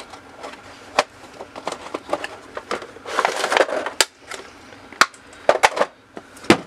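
Cardboard toy box and clear plastic packaging being handled: scattered sharp clicks and taps, with a stretch of crinkling rustle about three seconds in.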